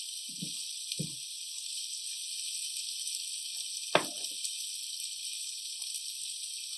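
Rice, mushroom and onion stuffing sizzling in oil in a pan, a steady hiss, with a couple of soft knocks near the start and a sharp clack about four seconds in.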